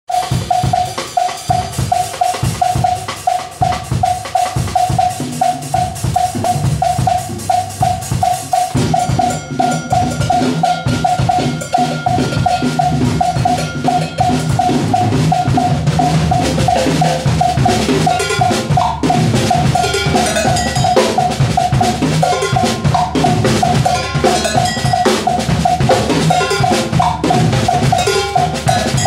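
Drum kit played solo in an Afro-Cuban groove: kick, snare, toms and cymbals over a steady, evenly spaced high-pitched knock, about three or four a second. The playing grows denser and louder about nine seconds in and again past the halfway point.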